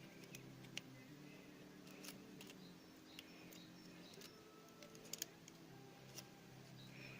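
Faint scattered clicks of small parts and tools being handled, about half a dozen, over a low steady hum.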